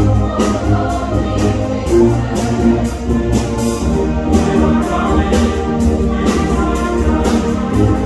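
School orchestra of strings, woodwinds and brass playing with a steady beat, joined by a mixed choir singing.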